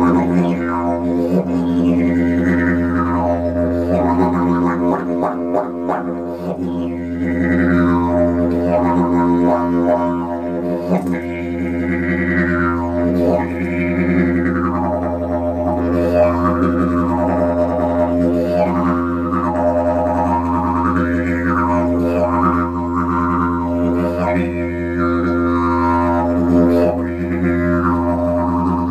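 Didgeridoo drone held on one low steady note without a break, while the player's mouth and tongue sweep bright overtones up and down over it in repeated wah-like arcs.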